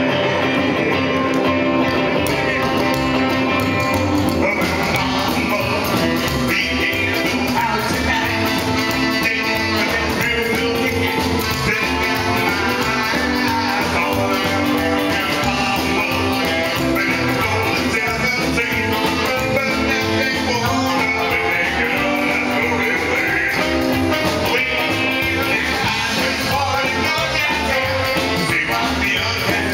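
Rockabilly band playing live: a man singing over electric guitar, saxophone and upright double bass, with a steady beat.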